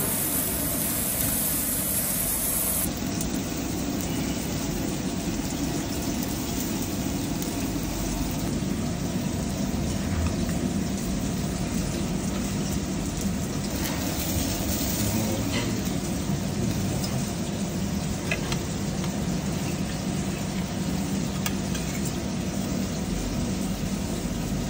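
Fish sizzling and hissing on a charcoal grill for about the first three seconds, then a steady low kitchen noise with a few light clicks of metal tongs against a plate.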